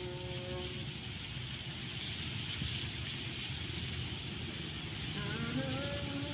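Steady low rumble of road traffic, with a motor's pitched hum that rises about five seconds in and then holds steady.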